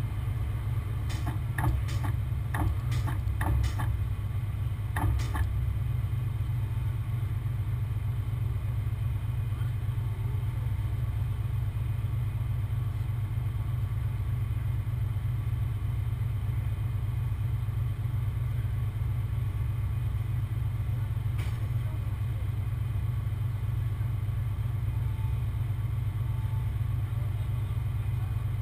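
Heavy recovery truck's diesel engine running steadily at a low, even drone while it works the lift. Several sharp metallic clanks come a couple of seconds in, and one more comes about twenty seconds later.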